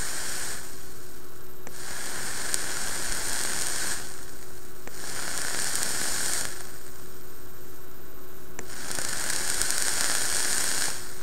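Kayfun rebuildable atomizer's Kanthal microcoil fired on a mod through a freshly juiced organic cotton wick: the e-liquid sizzles on the hot coil, giving off vapour. It comes in four separate bursts of a second or two each, one per firing.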